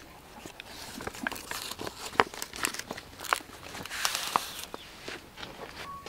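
Large fresh leaves rustling and crackling as they are folded and pressed tightly around a whole raw chicken, with many scattered sharp crinkles, busiest in the middle.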